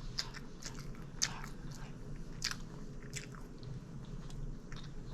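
A person chewing a mouthful of Subway sandwich, with irregular small wet mouth clicks.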